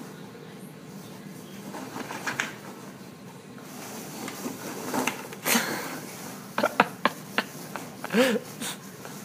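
Foam packing peanuts rustling and clattering as a small animal burrows through them in a cardboard box. Several sharp clicks come in a quick run past the middle, and a brief rising-and-falling voiced sound comes near the end.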